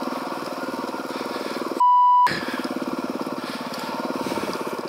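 Suzuki DRZ400E single-cylinder four-stroke dirt bike engine running at fairly steady revs while riding. About two seconds in, a half-second steady high beep briefly replaces all other sound.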